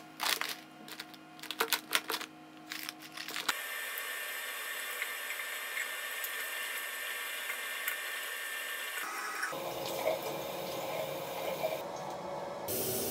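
Rustling and clicking as things are handled in a plastic storage box, then a bathroom tap running steadily into the sink during face washing. About nine and a half seconds in, the water sound changes and becomes fuller.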